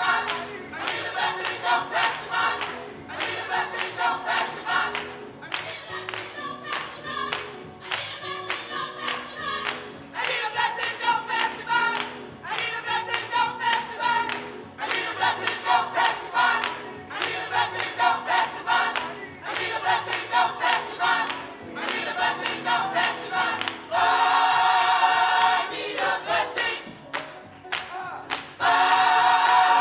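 Many voices singing a gospel song together in a steady rhythm, with two long held notes near the end.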